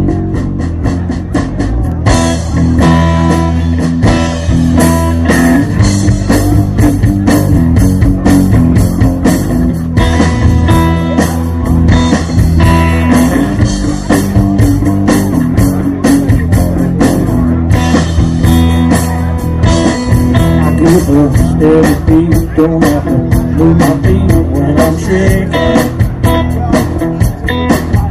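Live blues-rock band playing: electric guitar, bass guitar and drum kit. Cymbals and drums join the guitar and bass about two seconds in, keeping a steady beat.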